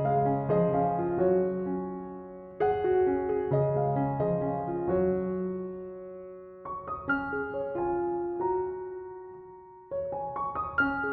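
Soft background piano music: slow phrases of struck notes and chords left to ring and fade.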